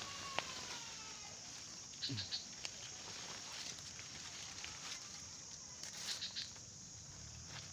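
Faint animal calls in the background, one falling call about two seconds in, with a few short rustles and clicks.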